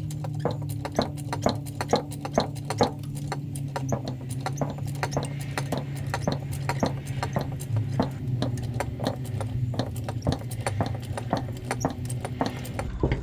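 Background music with held low notes that change every few seconds over a quick, steady ticking beat.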